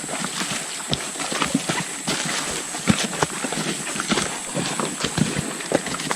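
Footsteps of hikers on a rainforest trail: irregular knocks and crunches of boots on the forest floor, several a second, over a steady high-pitched hum.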